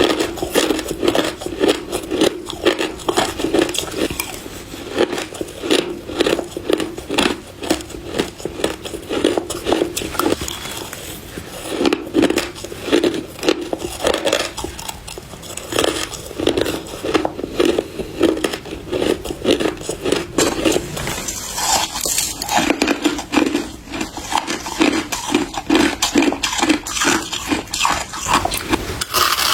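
Crushed ice being bitten and crunched, one crunchy bite after another in quick succession, with a change in texture about two-thirds of the way through.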